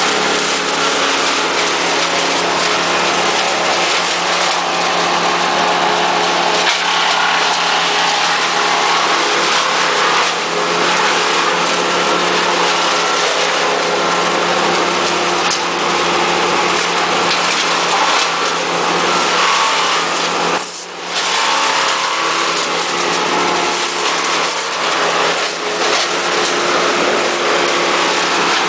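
Engine-powered machinery running steadily, with several engine tones over a dense mechanical noise. The level dips briefly about two-thirds of the way through.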